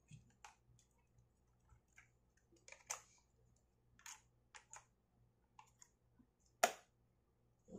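Scattered light plastic clicks and taps from handling a Canon EOS 800D (Rebel T7i) DSLR as its flip-out screen is swung round and folded back against the body. The loudest is a single sharp click near the end.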